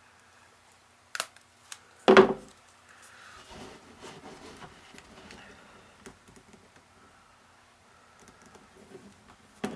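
Handling noises of taping a power cord to a small wooden brace: a sharp click about a second in, a brief louder rasp just after two seconds, then soft rustling and small ticks of tape and cord being worked, with another click near the end.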